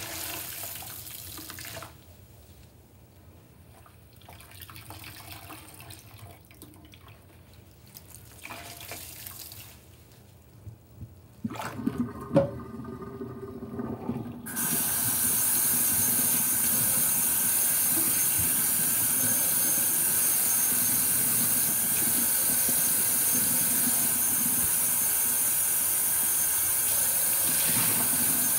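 Soapy kitchen sponges squeezed and wrung in a stainless steel sink, squelching and splashing water, with a few sharp knocks. About halfway through the tap is turned on and runs steadily into the sink.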